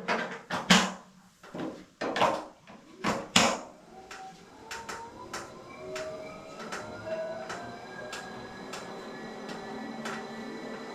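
Wahoo KICKR Bike smart trainer creaking loudly several times, a bit under a second apart, as it is pedalled; this creaking is the noise fault under investigation. From about four seconds in a whine rises steadily in pitch, with a light click repeating roughly every half second.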